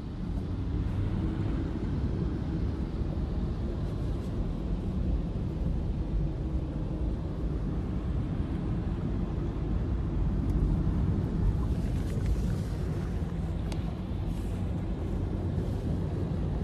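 Steady low rumble of a car driving through deep floodwater, heard from inside the cabin.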